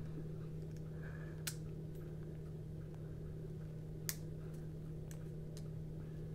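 A few light, sharp clicks of a folding knife's handle scale and blade being handled as the scale is fitted over the pivot and bearings, the clearest about a second and a half and four seconds in, over a steady low hum.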